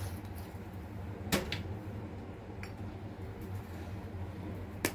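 Quiet room tone with a steady low hum, broken by a few light clicks and knocks. The sharpest comes about a second and a half in, another just before the end.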